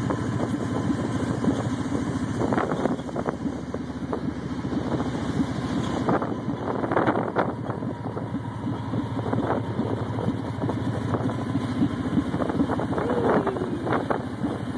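A vehicle's engine running steadily while driving down a paved mountain road, with wind buffeting the microphone and a few short clicks and knocks.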